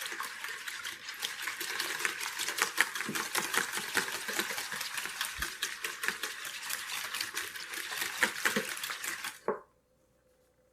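Eggs with vanilla and rose water being beaten by hand in a bowl: fast, continuous clicking and scraping of the utensil against the bowl through the liquid, stopping suddenly near the end.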